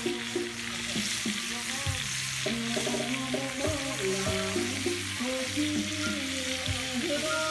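Snails sizzling in their shells on a hot stone slab over a wood fire, a steady hiss, with background music playing over it.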